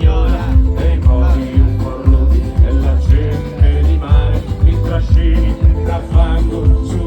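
Band playing an upbeat folk-rock song with plucked guitars, a steady beat and strong bass.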